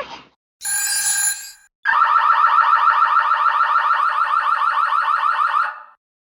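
An electronic alarm sounding: a short buzzy burst, then a rapid, evenly repeating rising warble for about four seconds that cuts off suddenly.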